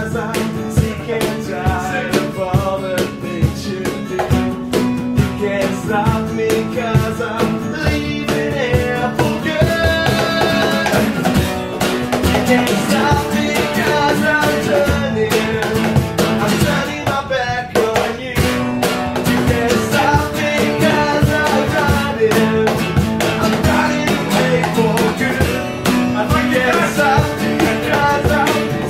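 Live acoustic band playing a pop-rock song: acoustic guitars strummed over a hand-slapped cajon beat, with voices singing along.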